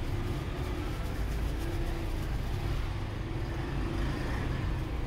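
Steady low rumble of street traffic and engines in the background.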